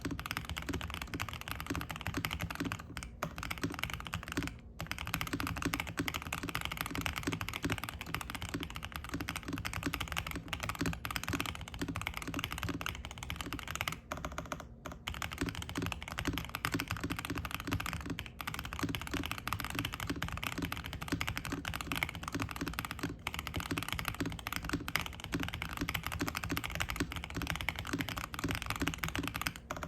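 Fast, continuous typing on a Zuoya GMK67 mechanical keyboard with stock DK Roastery Iced Latte switches, a polycarbonate plate, a foam-filled, tape-modded plastic case and ABS keycaps, set on a desk mat. Dense keystrokes run with a few brief pauses.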